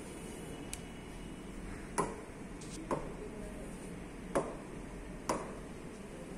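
Fingers tapping on the glass touchscreen of a Boxlight interactive flat panel: about five sharp taps roughly a second apart, over a steady low room hum.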